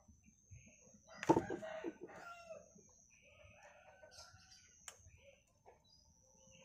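A rooster crowing once, loudly, about a second in, followed by softer clucking calls. A single sharp snip of pruning scissors cutting a bonsai branch about five seconds in.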